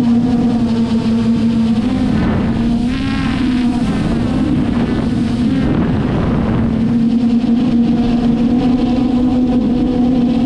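Traxxas Aton quadcopter's brushless motors and propellers humming steadily at a constant pitch, heard close up from a camera mounted on the drone. Between about two and six seconds in the pitch wavers and shifts as the motors change speed during manoeuvring, then it settles back to a steady hum.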